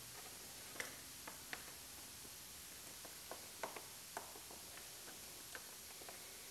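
Faint room tone with about ten light, irregular clicks and ticks scattered through it, the kind made by small hand work on a car's dash pad.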